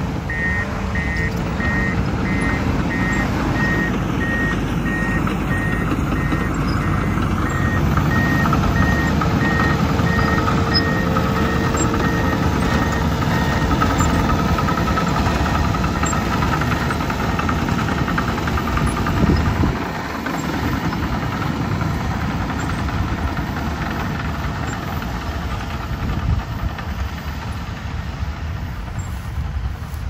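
Komatsu D51PX crawler dozer's diesel engine running as it works, with its reversing alarm sounding a steady series of high beeps that stop about halfway through.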